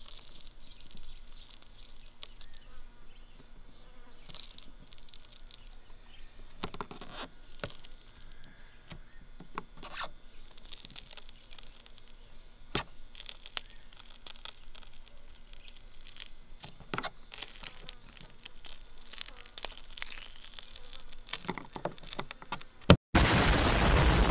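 A screwdriver tip scrapes and clicks as it pries a metal Maserati badge off painted bodywork: a run of small scrapes and clicks over a faint steady buzz. About a second before the end the sound cuts out, and a loud explosion sound effect starts suddenly.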